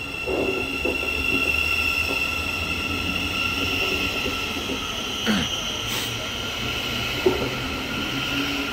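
Thameslink Class 700 electric multiple unit alongside the platform, its electrics giving a steady high-pitched whine over a low rumble. A brief falling tone comes about five seconds in.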